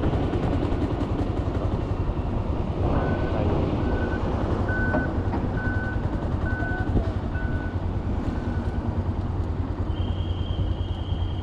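Steady low engine rumble of vehicles. About three seconds in, six evenly spaced electronic warning beeps sound, roughly one a second, like a reversing alarm. A higher steady tone comes in near the end.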